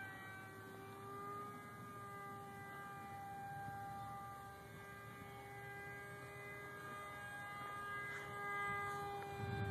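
Scratch-built foam-board RC F/A-18's motor and propeller droning in flight overhead, a steady hum that holds one pitch. A low rumble swells near the end.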